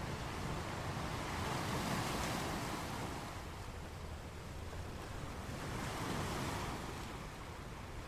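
Sea waves breaking against rocks on a beach, a continuous wash of surf that swells twice, about two seconds in and again about six seconds in.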